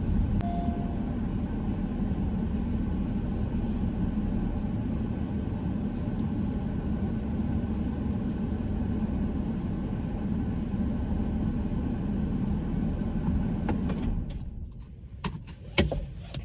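Steady low rumble of a car's engine and cabin, heard from inside the car. About fourteen seconds in the rumble drops away, and a few sharp clicks follow.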